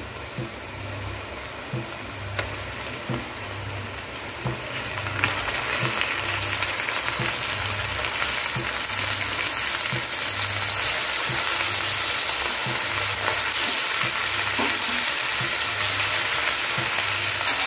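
Raw chicken pieces sizzling as they go into hot mustard oil and ghee with fried onions in a kadai. The sizzle gets louder and hissier about five seconds in as more pieces are added, then holds steady.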